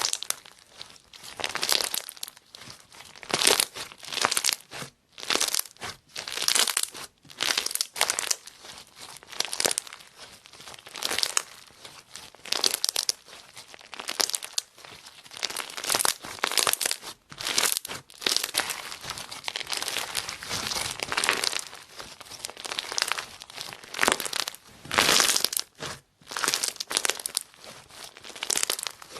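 Slime being squished, pressed and pulled by hand: irregular crackling, crinkling bursts, one after another, with short pauses between.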